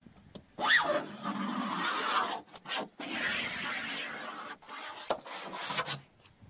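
A key or small metal tool scratching into the painted sheet-metal door of a Tofaş car: two long scraping strokes, then several short ones near the end. The paint is being scored deliberately, the car being due to be stripped and repainted.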